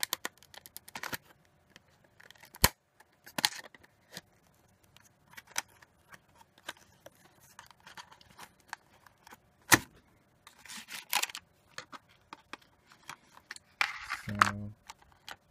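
Cardboard box and clear plastic blister packaging being handled and opened: scattered sharp clicks and crinkles, with a few longer plastic rustles toward the end.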